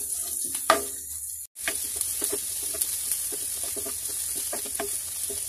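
Sliced onions and whole spices sizzling in hot oil in a non-stick wok, stirred with a wooden spatula that scrapes and knocks against the pan many times. The sound cuts out for an instant about a second and a half in.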